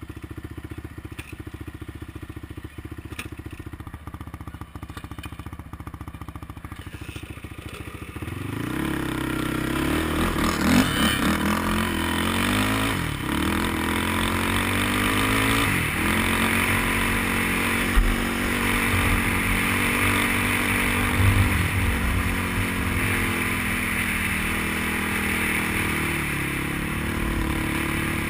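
ATV engine idling for the first several seconds, then revving and pulling away. Its pitch climbs and drops back several times as it shifts up through the gears, with a few sharp thuds along the way.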